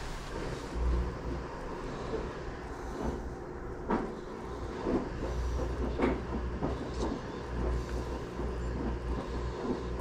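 Low steady rumble with scattered clicks and knocks from PVC pipe fittings being handled while solvent cement is brushed on and the joint pushed together.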